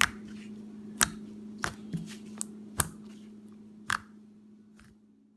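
Slime being handled with the hands, making irregular sharp clicks and pops, about eight in five seconds, over a steady low hum. The sound fades out near the end.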